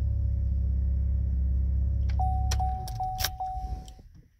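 2007 Chevrolet Impala engine idling steadily, then switched off a little over two seconds in: keys jingle, a high chime pulses about every 0.4 seconds, and the engine runs down over about a second and a half instead of cutting off cleanly. The owner finds the shutdown odd, as if the engine struggled to turn off.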